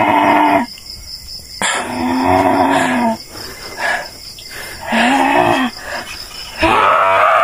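A woman groaning in three long, low moans a couple of seconds apart, then breaking into a louder, higher, rising wail near the end, while in the throes of a possession-healing session just before she vomits. Crickets chirp steadily behind.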